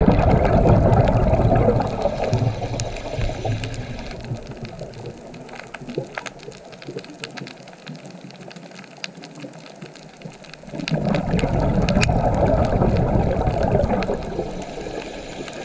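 Underwater recording of a scuba diver's exhaled bubbles rushing out of the regulator in two long bursts, one at the start and one about 11 seconds in. Scattered sharp clicks crackle through the quieter stretch between them.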